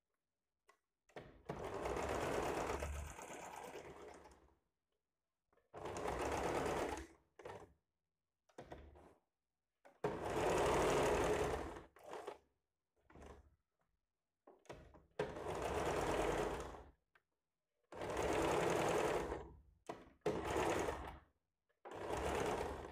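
Sewing machine stitching in repeated short runs, each from under a second to about three seconds long, stopping and restarting about eight times as the seam is worked all the way around the blouse's back-neck design.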